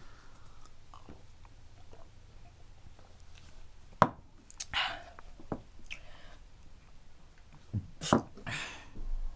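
A quiet room with two sharp clicks about four seconds apart, each soon followed by a person's short, harsh, breathy exhale.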